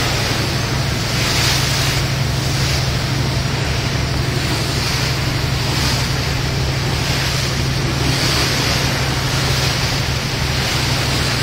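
Ferry under way: a steady low engine drone beneath wind buffeting the microphone and the rush of water past the hull.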